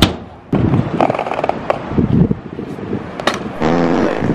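Freestyle scooter on concrete: a sharp clack at the start as the scooter hits the ground, then the wheels rolling with a rumble and a few more knocks and clicks from the deck.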